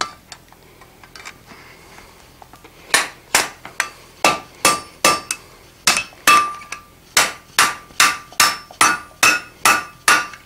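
Hand hammer striking a hot steel bar against the anvil's edge to bend it at a right angle: one blow, a pause of about three seconds, then a steady run of blows about three a second, each with a short ring from the anvil.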